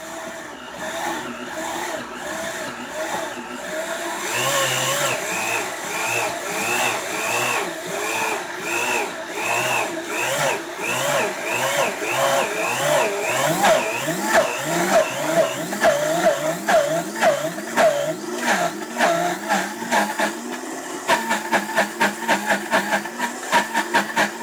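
An old Vitamix blender running on speed 7, grinding unsweetened coconut flakes into coconut butter. The motor's pitch rises and falls over and over, about once a second, as the thickening mass churns and loads the blades. Near the end this turns to a faster, choppier pulsing.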